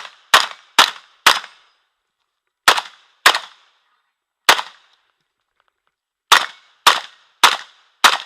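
Saiga 12 semi-automatic 12-gauge shotgun with a muzzle brake firing rapid shots: a string of three about half a second apart, then two, then a single shot, then four more about half a second apart, each with a short echoing tail.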